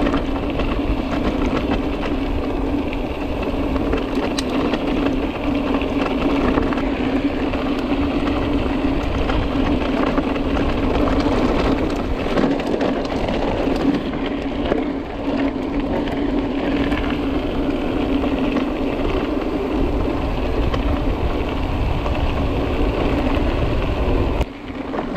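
Mountain bike riding downhill on a rough track: continuous tyre rumble and wind noise on the microphone, with a steady hum, dropping away briefly near the end.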